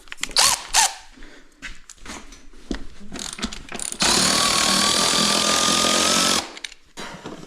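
A few clicks and knocks of tools being handled, then a power tool runs steadily for about two and a half seconds with a faint, slowly rising whine, and cuts off suddenly.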